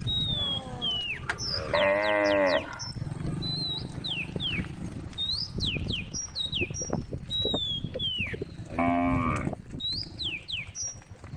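A cow mooing twice in short calls, about seven seconds apart. Small birds chirp in quick falling notes throughout.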